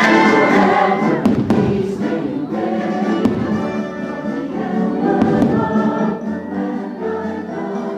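Patriotic show music with a choir singing long held chords over an orchestra, with a few sharp firework bangs about a second and a half and three seconds in.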